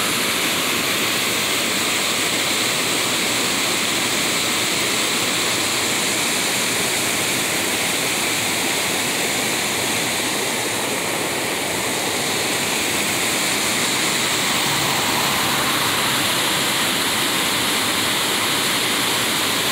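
Mountain stream rushing over a small rocky cascade: a steady, continuous rush and splash of falling water.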